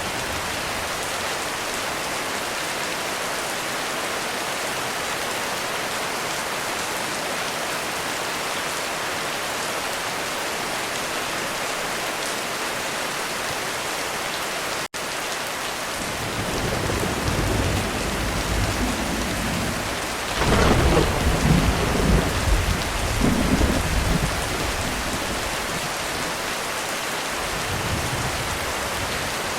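Heavy rain falling steadily on a roof, cutting out for an instant about halfway. Thunder then rumbles in, building to a loud peal about two-thirds of the way through and rolling away again.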